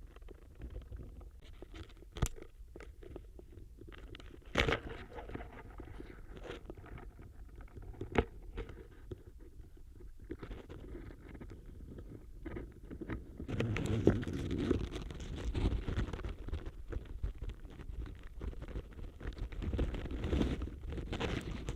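Dry autumn leaves crackling and scraping against a contact microphone. At first there are scattered crackles and a few sharp snaps over a low rumble, then from about two-thirds of the way in a denser, continuous rustling and crunching.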